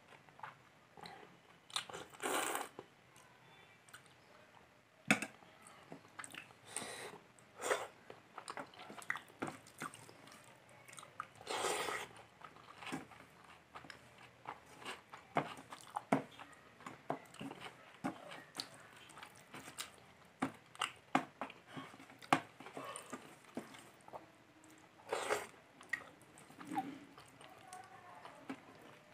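Close-miked eating sounds of a person chewing a mouthful of rice and fish curry eaten by hand: many short wet clicks and mouth smacks, with a few longer, louder bursts.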